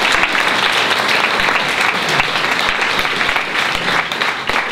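Audience applause: many hands clapping steadily.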